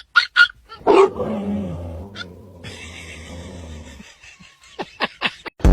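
Puppy calling: a few short yips, then a longer growling call from about a second in that falls in pitch and trails off, with a sudden loud low buzz at the very end.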